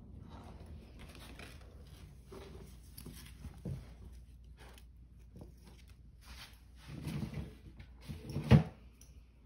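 Two puppies play-wrestling on a tile floor: scattered scrabbling and knocks of paws and bodies against the tiles, busier about seven seconds in, with one sharp, loud knock near the end.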